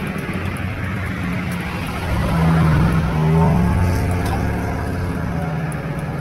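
A motor vehicle's engine running with a steady low hum, swelling louder for about a second and a half near the middle.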